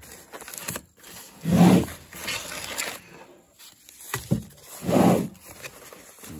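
A nylon storage bag and its foam padding rustling and scraping as folded table parts are pulled out by hand. Two louder, low, short sounds come about three seconds apart.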